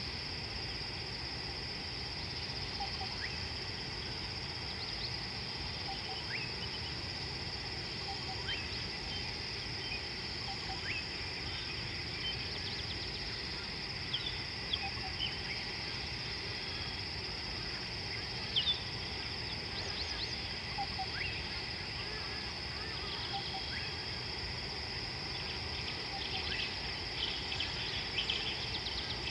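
Steady high-pitched chorus of crickets in the evening, with scattered short chirps and calls from small animals over it, a few more of them near the end.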